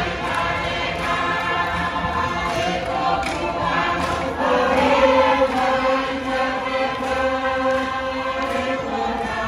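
A large mixed group singing a Tuvaluan song together in a chant-like style, holding long notes, swelling a little about halfway through.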